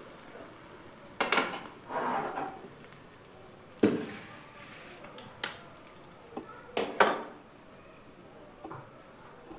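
Metal kadai clanking as it is lifted off the gas stove's grate and set down on the countertop, with the metal ladle in it knocking against the pan. About half a dozen separate clanks, the loudest about four seconds in and again near seven seconds.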